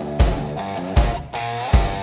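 Instrumental rock music: electric guitar holding and bending notes, punctuated by three heavy drum hits.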